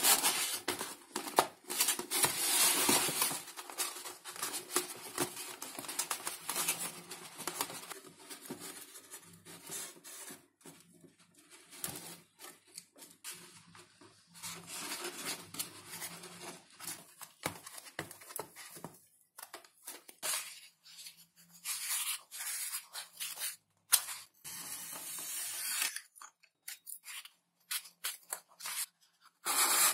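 Irregular cutting, scraping and rubbing strokes of hand work on foam and balsa model-aircraft parts, with short pauses between bursts.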